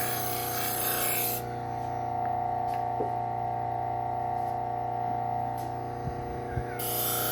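Bucktool low-speed belt sander running with a steady whine, a knife edge hissing against its spinning wheel. The rubbing stops about a second and a half in, leaving only the motor with a few light clicks, then starts again near the end.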